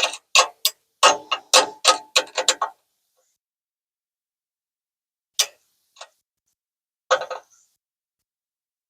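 Sharp metallic clicks of a screwdriver and wrench working a license-plate screw and nut, about a dozen irregular clicks in the first three seconds, then a few scattered ones later.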